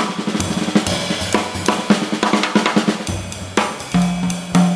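A music track played at its original 24-bit depth, with no audible quantization noise: a drum kit with kick, snare and cymbals keeps a steady beat, and a bass line comes in about three seconds in.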